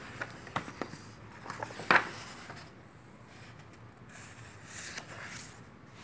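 A book being handled and its pages turned: a few light knocks in the first two seconds, the loudest about two seconds in, then a soft paper rustle around five seconds in.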